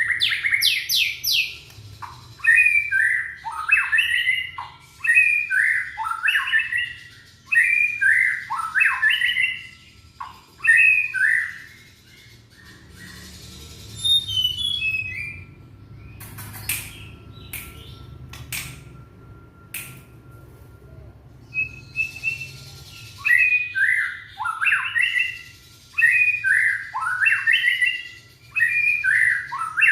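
Young white-rumped shama (murai batu) singing in short, harsh chattering phrases, about one a second. Midway the bird pauses for several seconds, and in that gap come a few high thin notes and a handful of sharp clicks, before the phrases resume.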